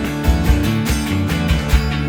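Live rock band playing an instrumental passage: drum kit keeping a steady beat under guitar and bass.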